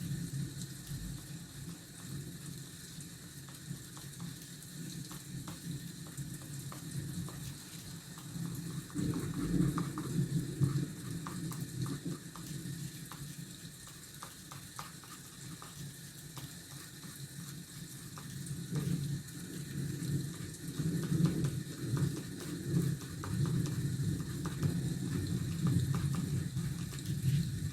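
Rain falling steadily, a continuous hiss with a crackling patter that swells louder a few times.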